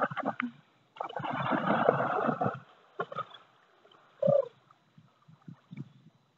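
Giant Schnauzer splashing through shallow lake water as it bounds in and starts to swim, with the loudest burst of splashing from about one to two and a half seconds in, then quieter paddling.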